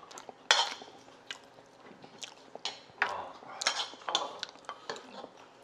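Spoons clinking and scraping against bowls while eating: a metal spoon in a stone bowl and a wooden spoon on a ceramic plate, giving a string of irregular sharp clicks and scrapes.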